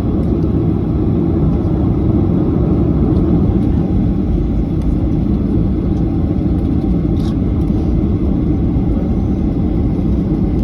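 Airliner cabin noise while the plane taxis: the engines and airframe make a steady low rumble heard from inside the cabin.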